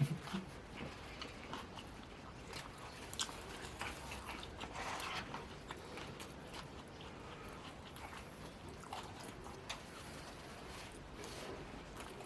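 Faint chewing and biting sounds of a person eating: scattered small mouth clicks and soft smacks.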